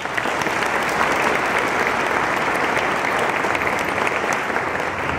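An audience applauding: many hands clapping at once. The applause starts abruptly and eases off near the end.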